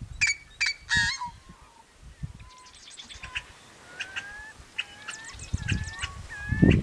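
Yellow-headed blackbirds calling: three loud, harsh, rasping notes in the first second, the call some liken to a rusty farm gate opening. From about two and a half seconds in comes a run of short chattering and slurred notes repeated a few times a second. A low rumble comes near the end.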